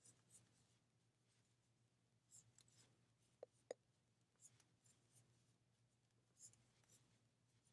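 Near silence, with faint rustling of yarn and two small clicks close together about three and a half seconds in, from single crochet stitches being worked with a metal crochet hook.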